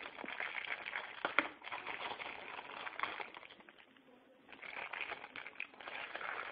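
Packaging rustling and crinkling as items are handled out of the box, with one sharp click about a second and a half in and a short lull near the middle.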